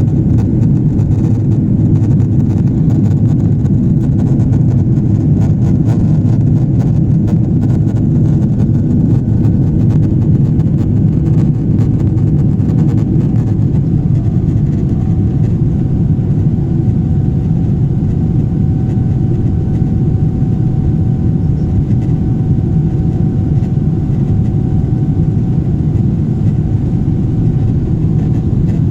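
Steady jet engine and airflow rumble heard inside a Boeing 777 airliner in flight after takeoff. A faint steady whine joins about halfway through.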